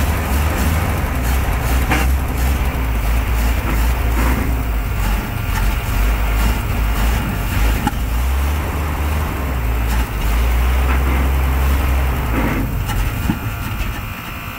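Carbureted gasoline engine of a long-dormant 5-ton military 6x6 truck running with a steady low rumble. It runs only on the fuel in the carburetor bowl, because the fuel lines deliver nothing from the tank.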